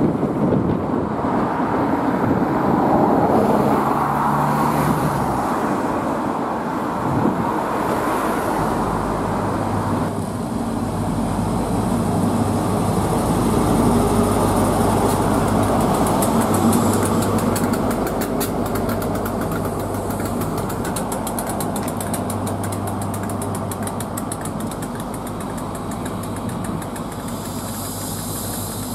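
Diesel high-speed train: a distant train rumbles across a viaduct, then an LNER Class 43 HST passes close, its power car's diesel engine running with a steady low note over the rolling noise of the wheels. The sound slowly fades over the last ten seconds as the train moves away.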